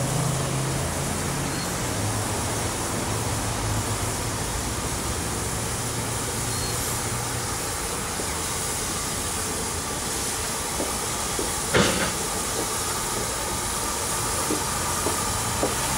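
Steam locomotive drifting slowly into a station, a steady hiss of steam with a low rumble that fades early on. One sharp knock comes about twelve seconds in, followed by a few light clicks.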